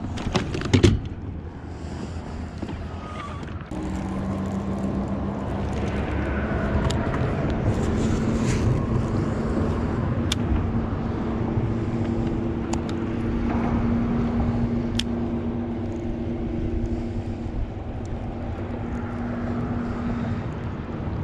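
Boat outboard motor running steadily at low speed, a hum that grows louder about four seconds in. A few sharp clicks of handled fishing tackle come just at the start.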